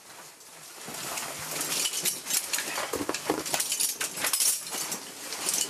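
Rescue stretcher and its metal hardware being hauled up a narrow rock shaft: a dense run of clinks, clicks and scrapes of carabiners, straps and the stretcher against the rock, growing louder over the first two seconds.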